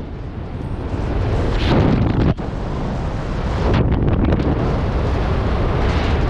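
Wind buffeting a helmet camera's microphone during descent under an open parachute canopy: a steady low rushing that swells about two seconds in and again near the end, with a momentary break about two and a half seconds in.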